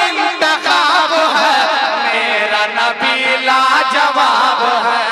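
Male voices singing a naat, an Urdu devotional song in praise of the Prophet, in a chant-like melody that goes on without a break.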